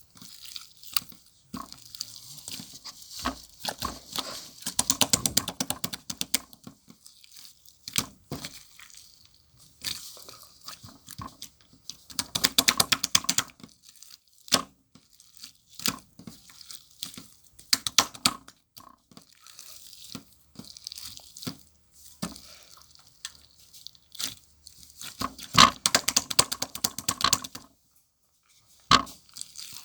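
Slime topped with white shaving foam being squished and pressed by hand, giving crackling, popping runs of rapid clicks three times, about 5, 13 and 26 seconds in, with scattered single pops between.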